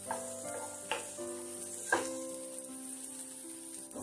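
Chopped carrots, beans and green chillies sizzling in oil in a non-stick kadai, stirred with a wooden spatula that scrapes and knocks against the pan three times, about a second apart. Background music with held notes plays underneath.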